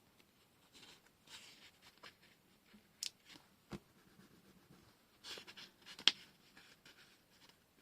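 Washi tape and paper handled on a desk: faint scattered rustles and small sharp clicks, the sharpest about three and six seconds in.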